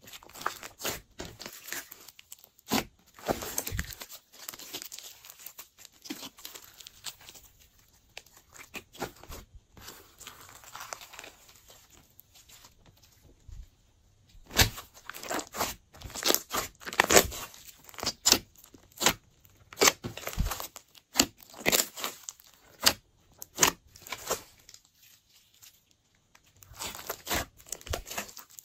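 Glossy slime being pressed, stretched and folded by hand, giving irregular sticky clicks and pops. The pops come louder and thicker from about halfway.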